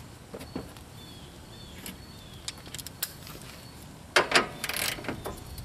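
Faint scattered clicks of hand tools being handled, then, about four seconds in, a short burst of metallic clatter and scraping as a ratchet with an extension and socket is set onto a nut of the hood latch assembly.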